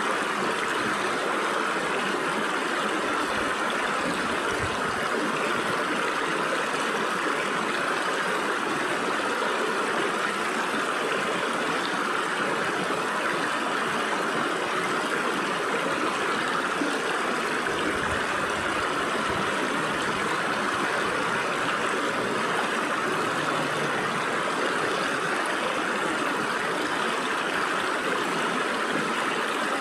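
Stream water flowing and splashing through the gaps between rocks, a steady rushing babble.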